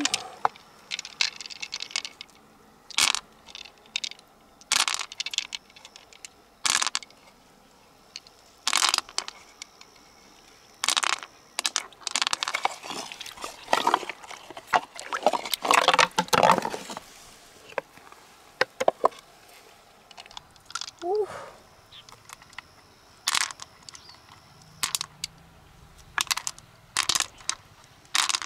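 Irregular clicks, knocks and crunches of hard mussel shells being handled and prised open, with a longer stretch of scraping and crunching in the middle.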